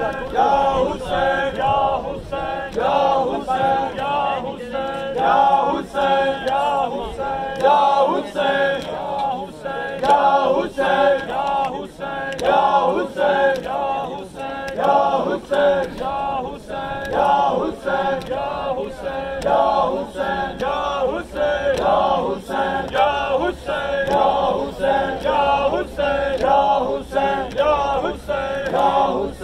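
Crowd of men chanting a Muharram noha (lament) together, with regular sharp strikes in time with the chant: the beat of matam, hands striking chests.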